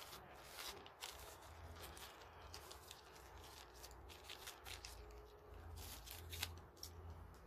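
Faint handling sounds of thread and a needle being worked by hand: light rustles and scattered small clicks, over a low steady background hum.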